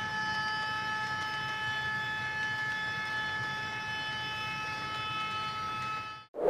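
H0-scale model freight train running past on the track: a steady high whine with several tones over a low rolling rumble. It fades out just before the end.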